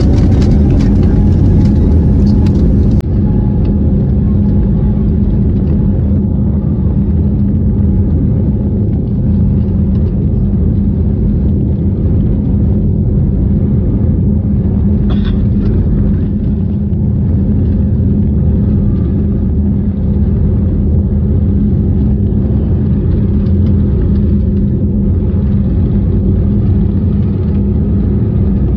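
Jet airliner's engines heard from inside the cabin: a loud, steady rumble with a constant low hum, and a whine rising in pitch over the first couple of seconds as the plane moves along the ground for departure.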